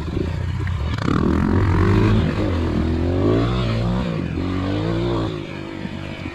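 Trail motorcycle engine revving up and down over and over, its pitch rising and falling, then easing back to a lower, steadier note about five seconds in.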